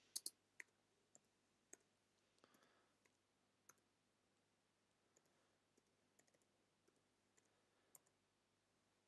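Faint, irregular keystroke clicks on a computer keyboard, a few at a time with pauses between, the loudest pair just after the start.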